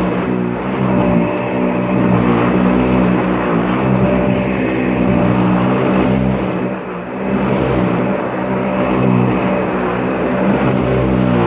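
Upright vacuum cleaner motor running at full speed with a steady whine and airflow rush, level dipping briefly around the middle, then switched off at the very end.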